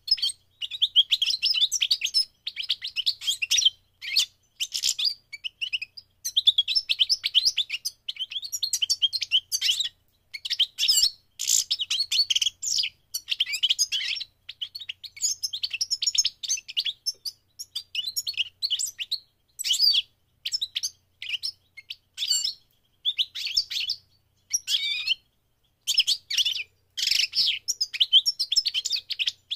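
European goldfinch singing: rapid, liquid twittering and trills in phrases of a second or two, broken by short pauses.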